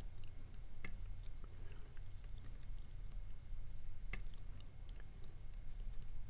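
Scattered small clicks and light scraping of picks working the pins of a cheap tubular lock, with two sharper clicks, about a second in and about four seconds in, over a low steady hum.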